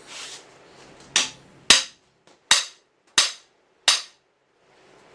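Five sharp hammer blows on a cam bearing installer tool, driving the rear (number 5) cam bearing into a small-block Chevy 350 engine block.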